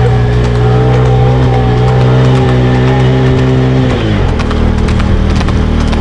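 A vehicle engine running at a steady pitch; about four seconds in its pitch drops as it eases off, then runs on lower.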